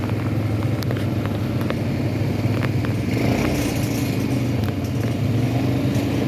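ATV engine running steadily under way, with scattered sharp clicks and knocks over it.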